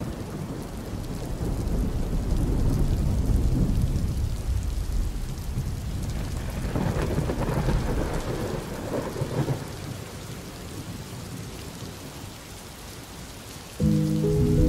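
Thunder rumbling over steady rain. One long low roll comes in the first few seconds and a second, brighter roll comes around the middle, then both die away. Music comes in abruptly near the end.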